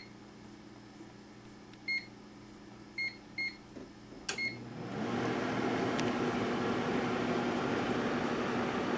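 1978 GE Dual Wave microwave oven being started: several short beeps from its control panel, then about five seconds in the oven switches on with a hum that rises to a steady pitch over a steady fan-like running noise.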